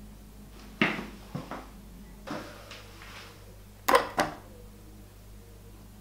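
A few light knocks and clicks from hands handling a front-loading washing machine's controls, with a sharp double click about four seconds in.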